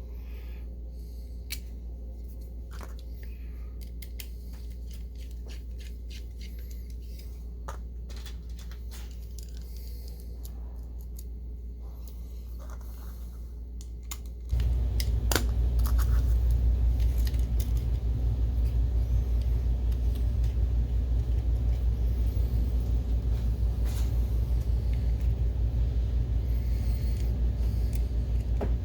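A steady low hum with small scattered clicks of parts being handled. About halfway through, a much louder low rumble with a fine, even pulse starts suddenly and keeps running.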